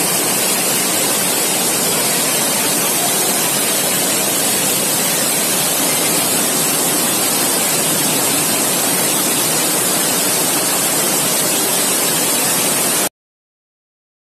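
Floodwater rushing in a torrent down a street, a loud, steady, even rush of water. It cuts off abruptly near the end.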